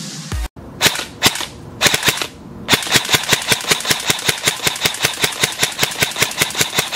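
ICS Transform4 CXP UK1 electric airsoft rifle (AEG) with electric blowback firing: two single shots, a short burst, then a long rapid full-auto burst lasting about five seconds.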